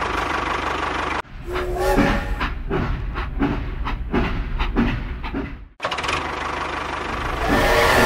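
Steam-train chugging in a steady rhythm of about two chuffs a second, with a steam whistle near the end. It is preceded by a steady hum that cuts off about a second in.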